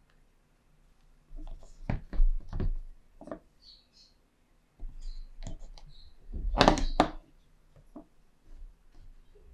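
Handling noise on a wooden desk: a few knocks and clicks as a smartphone is set down, then a louder burst of clicks and knocks about two-thirds through as Samsung Galaxy Buds2 Pro earbuds are lifted out of their charging case.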